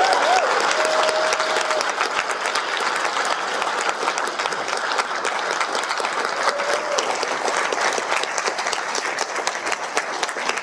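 Audience applauding at the end of a speech: dense, steady clapping that slowly fades, with a few voices calling out in held shouts in the first two seconds.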